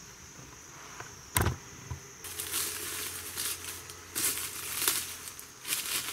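A single sharp crack about a second and a half in, then footsteps crunching irregularly through dry fallen leaves. A steady high insect buzz sits underneath at first.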